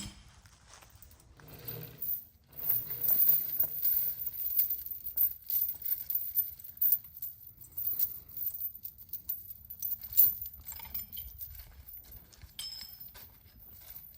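Metal chains and hardware jangling and clinking in irregular rattles, busiest through the middle and thinning out near the end.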